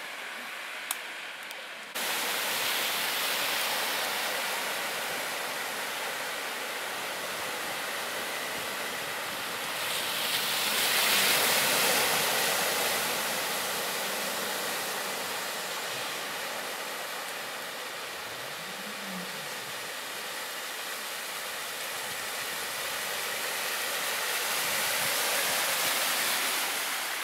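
Cars driving through deep water on a flooded street, their tyres throwing up spray in a steady rushing wash. It swells loudest as a car ploughs past about a third of the way in, and again as a van passes near the end.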